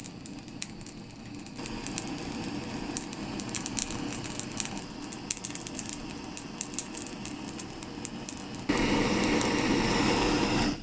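Plumbing blowtorch flame hissing steadily against a red pepper, with small crackles and pops from the skin as it blisters and chars. The flame gets louder a second or two in, then abruptly much louder near the end.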